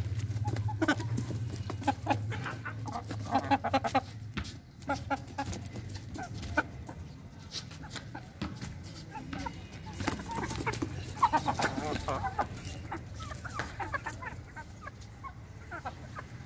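Aseel chickens clucking, a run of short scattered calls, over a steady low hum.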